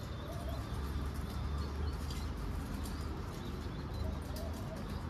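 Pigeons cooing, twice: once near the start and once near the end, over a steady low rumble and scattered faint clicks.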